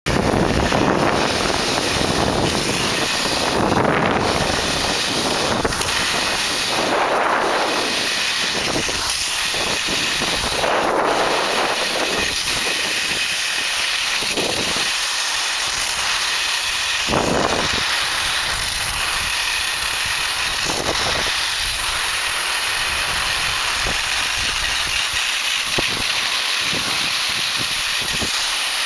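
Skis sliding over soft spring snow, a steady rushing hiss mixed with wind on the microphone, swelling several times in the first half.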